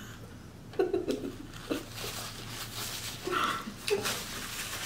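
Close-miked chewing of French fries, with a few short mouth sounds. A paper napkin rustles near the end.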